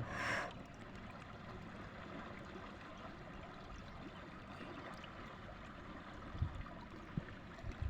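River water running steadily, with a couple of faint knocks near the end.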